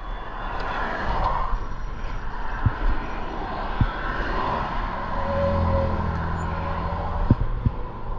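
Road traffic going by, a steady rush of passing cars. A vehicle's engine drone swells about five seconds in and fades again about two seconds later, with a few light knocks.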